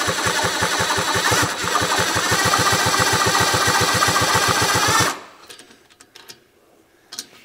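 Rebuilt Rokon motorcycle engine being spun over with its spark plug out and grounded against the cylinder head, a test for spark now that a bad condenser has been replaced. A steady rhythmic pulsing, about eight beats a second, with a hiss over it, that stops suddenly about five seconds in; a few light clicks follow.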